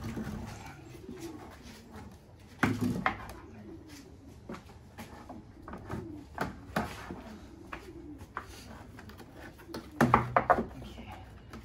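Wooden twisting dowels knocking and clacking in the chain lacing of a taiko as they are turned to tighten the rawhide head, with short low creaks under the strain; a loud cluster of knocks comes near the end.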